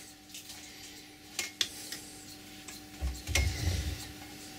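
A few light metallic clicks of an Allen key and hands on a cast-iron lathe compound slide, then a low handling bump about three seconds in, over a faint steady hum.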